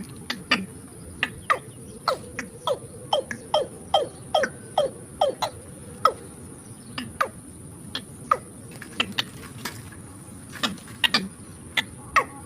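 Watercock (kora) calling: a run of short, sharp notes that each drop quickly in pitch, about two to three a second, thinning out after about six seconds into scattered notes. A steady high hiss runs underneath.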